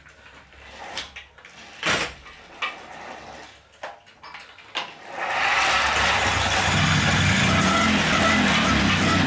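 Peugeot 103 moped's 49 cc single-cylinder two-stroke engine being pedal-started on its stand: scattered clicks and knocks from the pedals and drive for about five seconds, then the engine catches and runs steadily.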